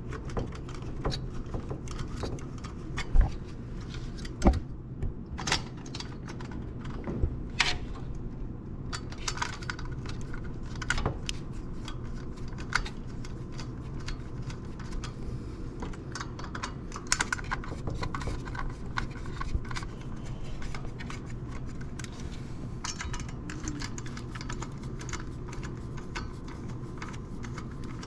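Phillips screwdriver working the mounting screws of a CPU cooler's heatsink into the motherboard: irregular small clicks and ticks of metal and plastic, with a few sharper knocks about three and four and a half seconds in.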